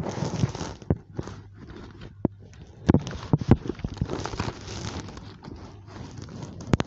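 Irregular knocks, clicks and rubbing from a phone being handled close up, over a faint low hum, with a sharp double knock near the end.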